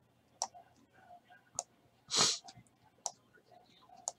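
Scattered sharp clicks at a computer, about four over a few seconds, with a short breathy hiss about two seconds in that is the loudest sound.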